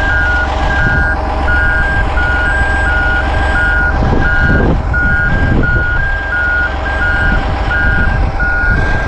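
Backup alarm beeping in an alternating two-tone pattern, about one high-low pair a second, over the steady low rumble of a running diesel engine.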